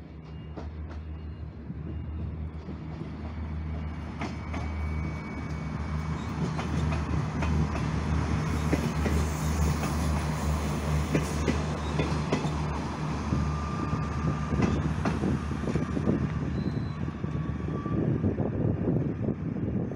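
X 72500 regional diesel railcar passing at speed, its diesel engine droning steadily and growing louder as it comes by, with wheels clacking over the rail joints in the last few seconds.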